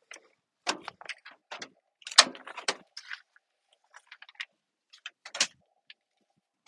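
A string of short clicks and knocks as the cab door of a 1990 Subaru Sambar mini truck is unlatched, swung open and handled, the loudest knock a little over two seconds in.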